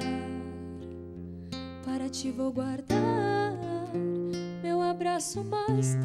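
A woman singing a slow gaúcho folk song into a microphone, accompanied by a nylon-string acoustic guitar. The guitar's plucked bass notes ring under the voice, and the voice comes in more strongly about halfway through.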